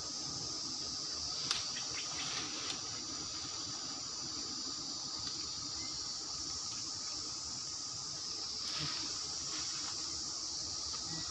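Steady high-pitched drone of insects, with a few light clicks about one and a half, two and a half and nine seconds in.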